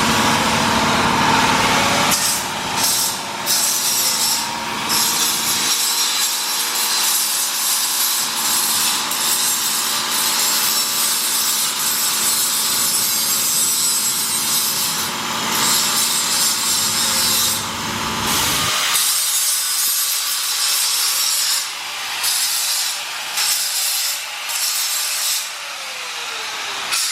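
Metal being worked with an abrasive tool: a continuous harsh rasping noise with a few brief dips, over a low drone that stops about 19 seconds in.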